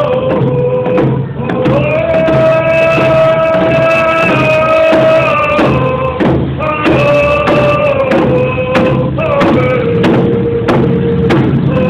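Native American hand-drum group: men's voices singing together in long held notes that step between a few pitches, over a steady beat on hand-held hide frame drums.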